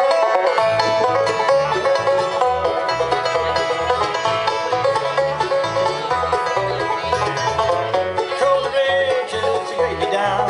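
Live bluegrass band playing an instrumental opening: banjo picking over acoustic guitar and mandolin, with a steady bass line underneath. The band comes in sharply at the very start.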